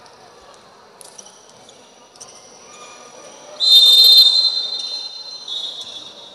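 Gym crowd chatter with a basketball bouncing a few times, then a sudden, loud, shrill high-pitched tone about three and a half seconds in that fades out over about two seconds.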